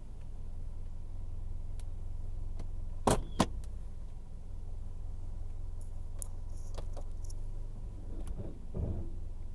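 Mercedes-Benz W123 230CE's 2.3-litre four-cylinder petrol engine idling steadily, heard from inside the cabin. Two sharp clicks about three seconds in are the loudest sounds, with a few lighter ticks and rattles later.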